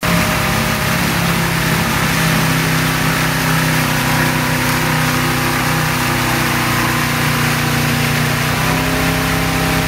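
Motorboat engine running steadily at towing speed, its pitch holding even, over the rush of churning wake water.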